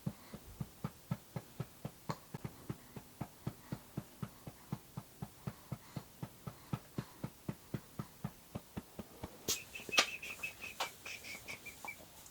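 A hand patting a baby's back on her mother's shoulder to bring up a burp: steady soft thumps, about three or four a second. Near the end there is one sharp knock and a high, thin steady sound that lasts about two seconds.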